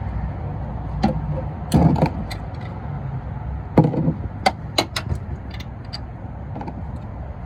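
Irregular metallic clicks and knocks of a wrench being fitted and worked on a car's oil drain bolt, which is stripped and will not turn.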